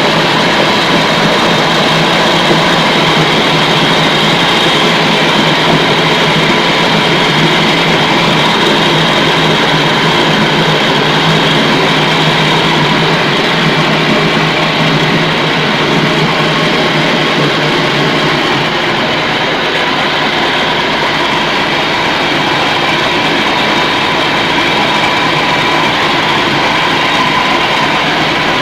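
Size-70 meatball grinding machine running steadily, a constant loud mechanical noise with a steady whine over it.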